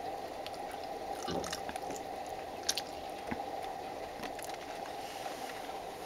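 A cat sniffing at food in an open refrigerator: a few short, soft sniffs and small clicks over a steady low hum.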